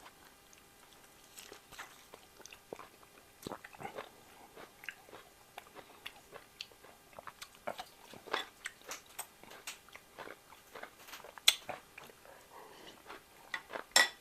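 Wet chewing and biting of raw beef liver: irregular small smacks and clicks, with a couple of louder smacks late on.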